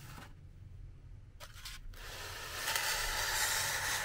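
Handling noise as a car air-conditioning compressor is shifted and turned on a foam sheet: short scrapes at the start and about a second and a half in, then a longer, louder rubbing scrape.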